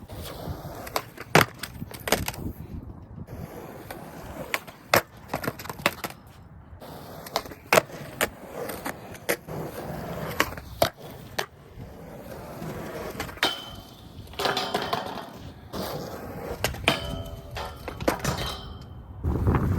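Skateboard rolling on pavement with many sharp clacks and knocks from the board and wheels. A high thin squeal comes and goes in the last few seconds.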